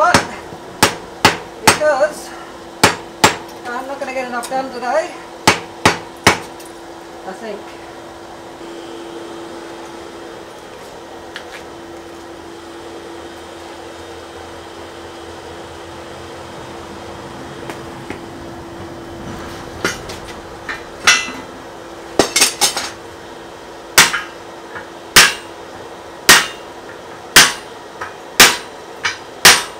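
Hand hammer blows on red-hot wrought iron: a quick run of strikes on the anvil, then a pause of about thirteen seconds with a steady hum, then steady blows about one a second from about twenty seconds in. The work is setting a forge-welded collar on an anvil post, with the end of the post upright in a swage block.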